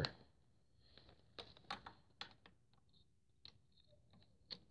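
Faint, scattered light clicks and taps as a socket on a long extension is fitted onto a bolt under a dirt bike's brake pedal, with metal knocking lightly against metal.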